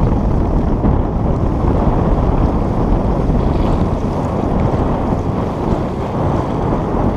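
Strong wind buffeting the microphone in a steady low rumble, with sea waves washing against shore rocks beneath it.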